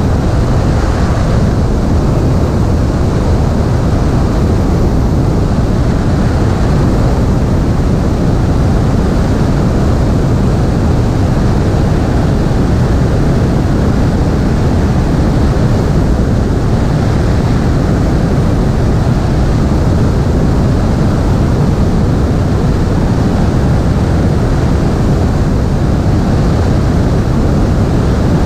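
Airflow rushing over a camera mounted on a Piper Cherokee's stabilator, with the light aircraft's engine and propeller under it: a loud, steady noise with no change.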